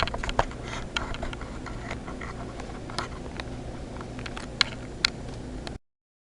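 Scattered light clicks and taps of handling over a steady low hum. The sound cuts off to dead silence about five and a half seconds in.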